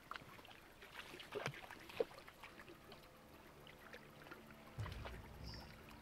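Footsteps and rustling through thick forest undergrowth, with scattered twig clicks and a sharper snap about two seconds in; a low rumble comes in near the end.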